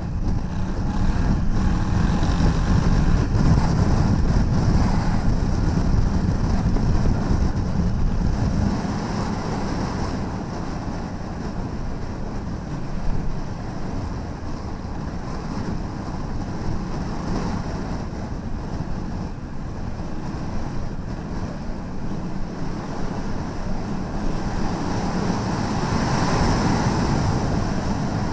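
Wind noise buffeting the microphone on a moving Honda Africa Twin 1000cc motorcycle, over the rumble of its parallel-twin engine and tyres on a rough gravel road. The sound stays steady, a little louder in the first few seconds and again near the end.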